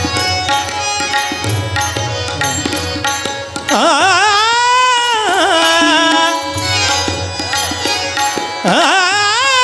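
Devotional bhajan music: a tabla is played while a singer holds long, wordless notes that waver and glide in pitch, starting about four seconds in, breaking off briefly and starting again near the end.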